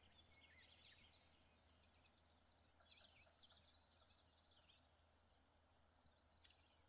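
Near silence with faint songbirds calling: many quick high chirps and trills, and a thin steady high trill near the end.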